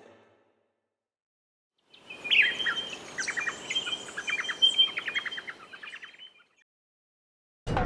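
Birds chirping and singing, a rapid string of short chirps over a high held note, starting about two seconds in and fading out after about four seconds.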